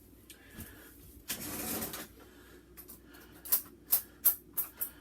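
A short sliding rush, then metal silverware clinking sharply five or six times in quick succession as a spoon is picked out.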